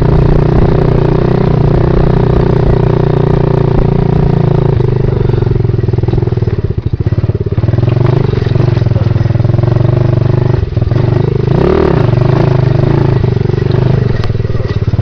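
110cc pit bike engine running hard as the bike climbs. The revs drop about five seconds in, the engine eases off briefly near seven seconds, and there is a quick rev up and back down near twelve seconds.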